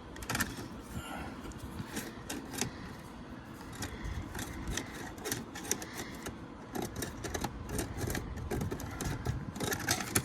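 Metal drain snake being cranked and worked up a dryer vent duct to clear lint: rapid, irregular clicking and rattling of the cable.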